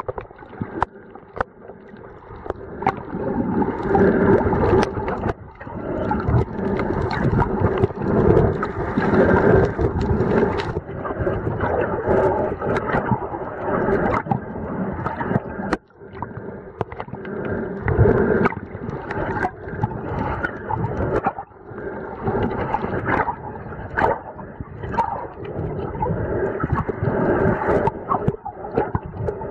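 Muffled underwater sound of water moving and gurgling in uneven surges, with scattered clicks and knocks, picked up underwater by a waterproof camera's microphone.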